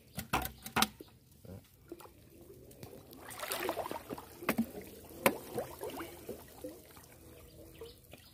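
Water splashing as a fishing net with fish caught in it is worked, with a few sharp knocks near the start and about five seconds in, and a longer stretch of splashing about three seconds in.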